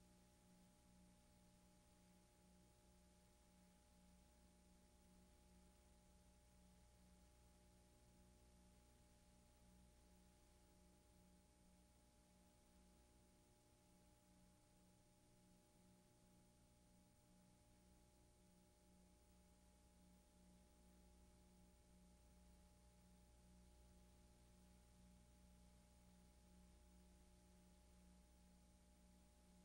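Near silence: only a faint, steady electrical hum and hiss, with no event in it.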